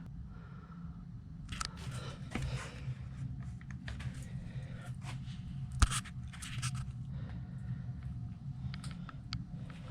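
Light scraping and handling noises with scattered clicks, the sharpest about six seconds in, over a steady low hum.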